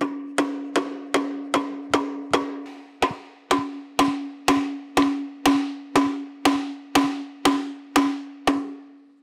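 A mallet tapping a wooden pulley onto an electric motor's keyed shaft: a steady run of sharp knocks, about two and a half a second, over a ringing tone that fades away after the last blow near the end.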